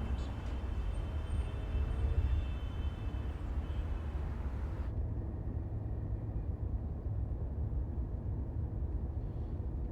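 Steady low rumble, like a vehicle running, with lighter higher-pitched noise over it that cuts off abruptly about five seconds in.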